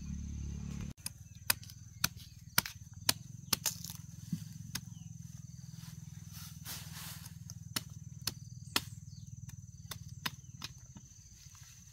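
Machete chopping hands of green bananas off the bunch's stalk: a series of sharp chops, several in quick succession after the first second, then a few more spaced out later.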